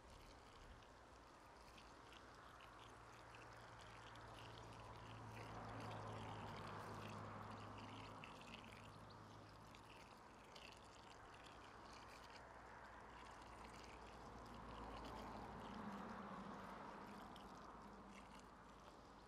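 Faint, steady sound of water pouring in a thin stream from a watering can onto peat, swelling twice, about a third of the way in and again near the end.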